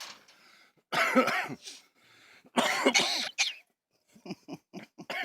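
Cockatoo mimicking a human cough: two long coughs, then a run of short quick coughs near the end.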